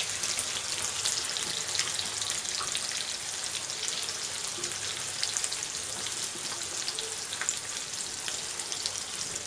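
Chopped onions frying in hot oil in a kadhai: a steady sizzle full of fine crackles, just after the onions have gone in.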